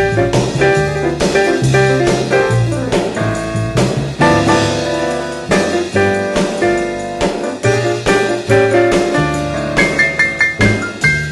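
Jazz piano trio playing: piano over a plucked double bass and a drum kit, with a steady swinging beat.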